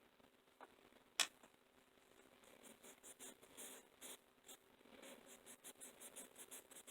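Faint rapid scratchy scrubbing strokes on a model locomotive's small metal wheels as they are cleaned, with a sharp click about a second in.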